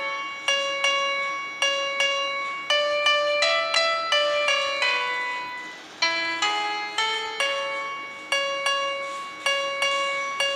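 Instrumental music: a keyboard plays a slow melody of single struck notes, each ringing and fading, the phrase starting over about six seconds in.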